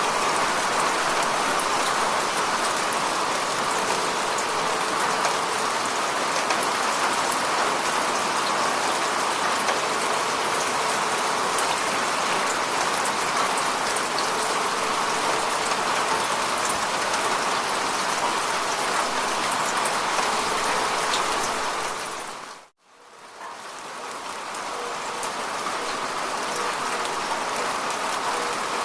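Steady rain falling, with the patter of individual drops. About three-quarters of the way through the sound dips to near silence for a moment and fades back in over a couple of seconds.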